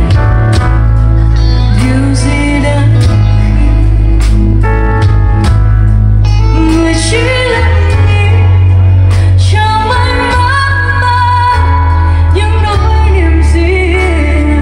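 Live concert music: a band with heavy bass accompanies a singer, whose voice comes in stronger about halfway through.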